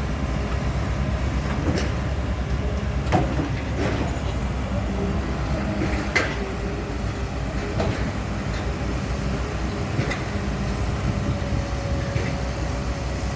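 Heavy diesel construction machinery running steadily with a low rumble, and sharp metallic clanks every few seconds. A faint steady whine comes in near the end.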